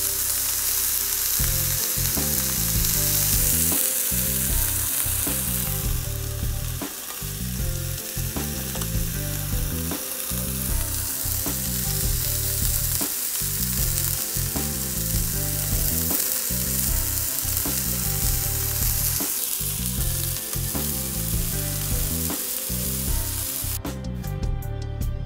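Thick beef steak sizzling steadily as it cooks on a barbecue.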